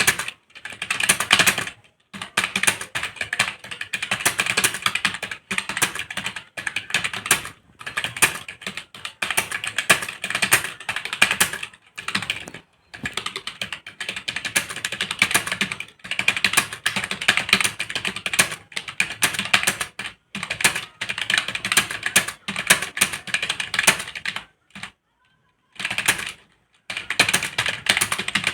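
Fast continuous typing on a computer keyboard, rapid key clicks in runs of a second or two broken by brief pauses, with a longer pause about three-quarters of the way through. A typing-speed test, with a net speed of 55 words per minute.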